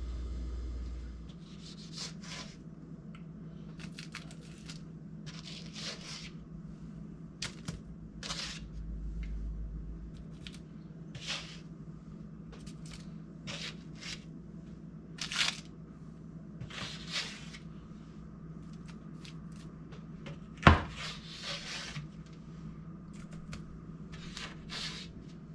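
Kitchen handling sounds: short scrapes and rustles come and go over a steady low hum, with one sharp knock, the loudest sound, about three-quarters of the way through.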